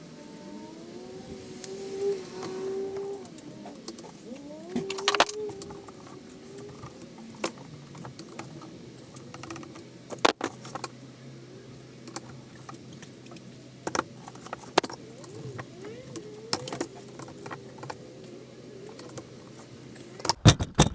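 Metal tools and driveshaft parts clinking and knocking as bolts are tightened with a torque wrench to 40 N·m, with squeaky creaking in the first half. Near the end come two loud sharp clicks, the torque wrench clicking over at its set torque.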